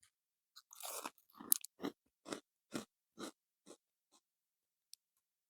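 A man biting into a hard, rocket-shaped Snackrite pickled onion maize snack and chewing it, with crunches about twice a second that fade away. The crunch comes from a snack so firm that it is likened to packaging peanuts.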